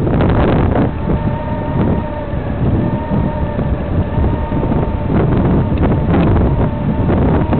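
Honda Gold Wing motorcycle riding along, its engine and road noise under heavy wind buffeting on the microphone, with a steady whine from about a second in.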